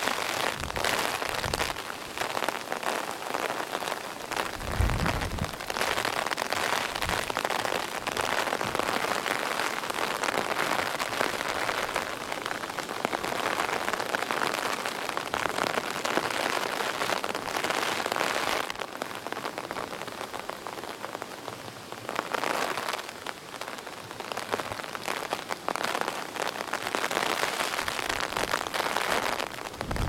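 Steady heavy typhoon rain pouring down. A few gusts of wind thump on the microphone, the strongest about five seconds in and again at the very end.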